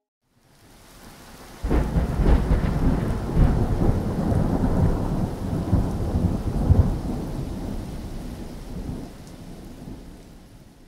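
Thunderstorm: a hiss of rain, then about two seconds in a sudden loud clap of thunder that rolls on for several seconds and slowly dies away.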